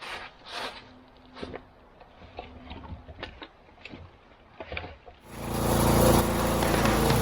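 A few faint, scattered knocks and clunks, then background music fades in about five seconds in and becomes the loudest sound.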